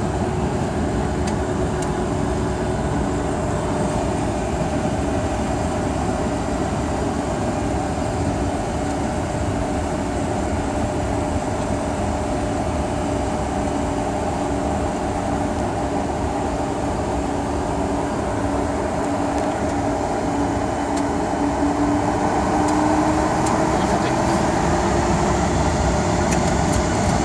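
Boeing 747-400's jet engines and flight-deck air noise, heard from inside the cockpit as the jet taxis onto the runway: a steady rumble and hiss with a low engine tone. From about 22 seconds in, the tone rises and the noise grows louder as the engines spool up.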